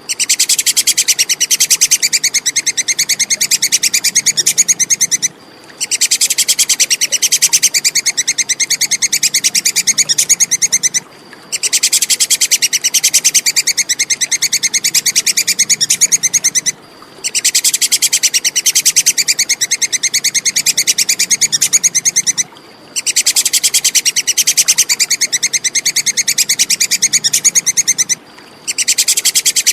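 Squirrel (tupai kekes) chattering call, a high, rapid train of clicks, looped in bouts of about five seconds each with brief pauses between them.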